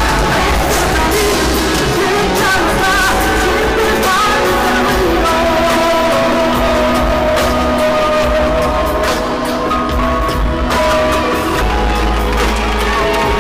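Loud pop-rock song with a singer's voice holding long, wavering notes over a steady band backing.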